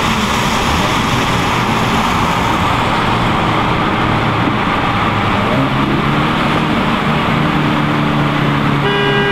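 Inside the cabin of a 2016 Ford Focus RS, its 2.3-litre turbocharged four-cylinder pulls under acceleration in a rolling race, over loud road noise. The engine note climbs in pitch from about halfway through. A short beep sounds near the end.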